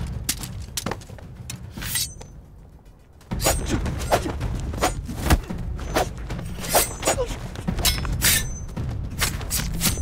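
Staged fight sound effects: sharp hits and scuffles of a hand-to-hand knife fight. A few blows come in the first three seconds, then a rapid run of strikes from about three seconds in, over low dramatic music.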